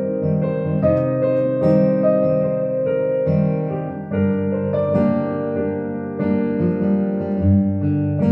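Yamaha Clavinova CVP-805 digital piano played in its piano voice: a slow ballad, with chords changing about once a second over held notes.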